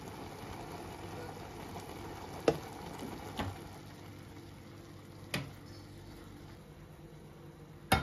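A few short knocks of a wooden spoon and cookware against a pot, over a faint steady hiss; near the end comes a louder clank as cookware is set down on the stove.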